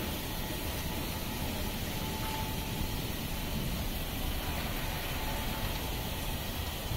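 Touchless automatic car wash running: water jets and a falling water curtain spraying onto a car's body and windows in a steady, even hiss.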